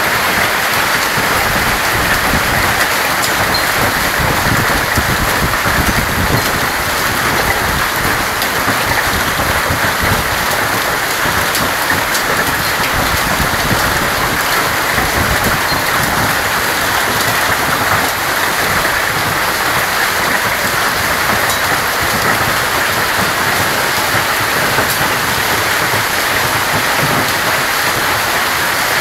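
Hailstorm with heavy rain: hailstones and rain pelting a wooden deck, railings and garden plants, a steady dense hiss with scattered sharper hits.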